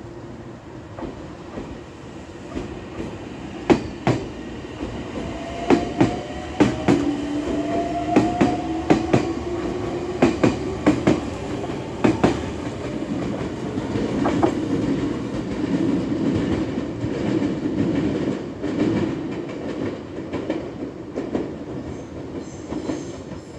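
Meitetsu electric commuter train pulling away: the traction motors give a whine that rises in pitch as it accelerates, and the wheels click sharply over rail joints. The sound then settles into a steady rolling rumble as the cars run past.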